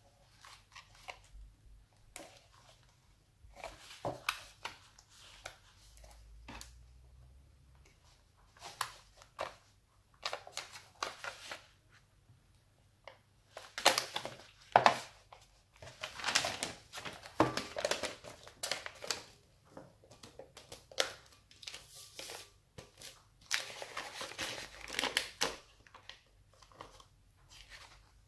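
Clear plastic wrap crinkling and rustling in irregular bursts as hands press and smooth it around a perforated metal holder, with paper rustling and small handling knocks.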